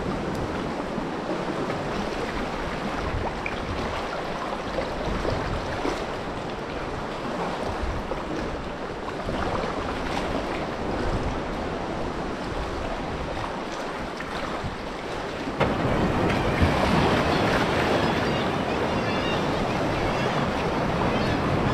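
Seawater sloshing and lapping around a paddled sea kayak, with paddle strokes in the water. About fifteen seconds in it changes abruptly to a louder, brighter rush of waves and wind.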